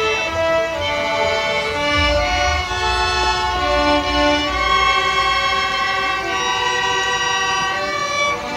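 Group of violins playing a melody together in held, bowed notes. A low rumble sits under the music for a few seconds in the middle.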